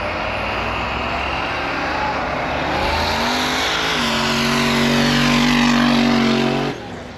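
Off-road vehicles racing side by side in a snow drag race, engines at hard throttle: the engine pitch climbs over the first few seconds, then holds steady and loud, and cuts off suddenly near the end.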